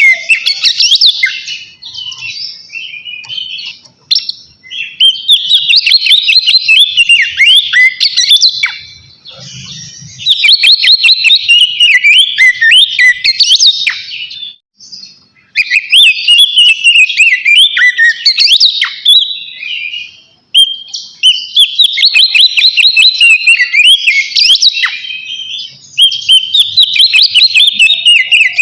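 Oriental magpie-robin (kacer) singing loudly: its full 'ngeplong' song, used to call out rivals. The song comes in long phrases of rapid whistles and chattering notes, broken by short pauses every few seconds.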